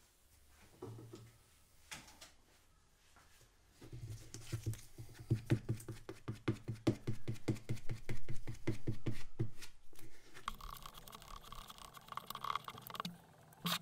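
Plastic spreader mixing two-part filler and hardener on a board: a run of fast, even scraping and squishing strokes starting about four seconds in and lasting some five seconds, then softer scraping and a sharp click near the end.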